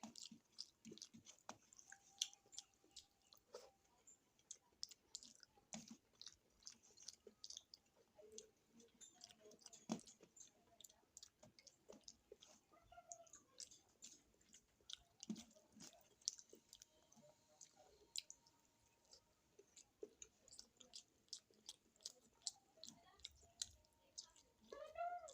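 A person chewing food close to the microphone, with frequent soft, wet mouth clicks and smacks. The sounds are quiet throughout.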